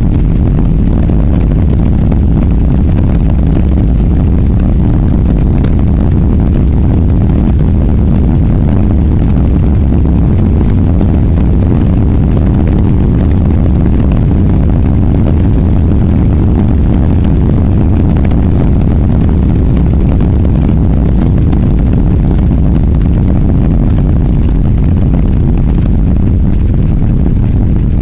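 Wind buffeting the microphone of a camera mounted outside on a moving car. It makes a loud, steady low rumble with no clear engine note.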